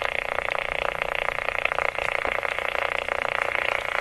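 Realistic TRC-457 CB radio, fitted with Schottky receiver diodes, receiving band noise on AM through its speaker with the noise blanker and ANL in use: a steady, rapidly fluttering static hiss with no station heard.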